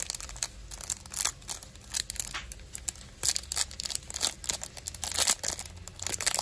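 Foil-lined trading card pack crinkling and crackling as fingers work at its crimped seal and tear it open by hand, in a quick irregular run of sharp crackles.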